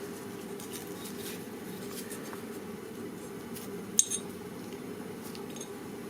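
Light metallic clinks and clicks of a motorcycle clutch hub, washer and tools being handled as the hub is worked off the shaft, with one sharper clink about four seconds in, over a steady low hum.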